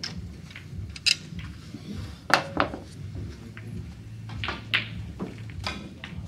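Scattered sharp clicks and knocks in a snooker hall, a few ringing briefly, over a low steady hum.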